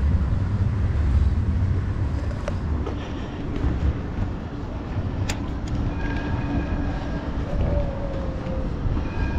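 Wind buffeting the microphone as a steady, uneven low rumble under a hiss, with a faint steady hum joining about two-thirds of the way through.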